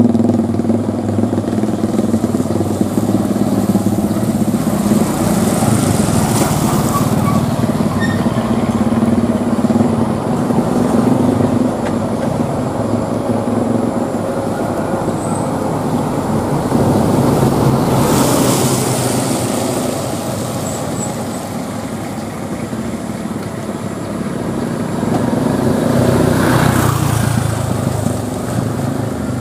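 Mixed road traffic climbing a steep hill: truck, pickup and motorcycle engines working uphill in low gear, a steady engine drone. Three louder swells come as vehicles pass close by.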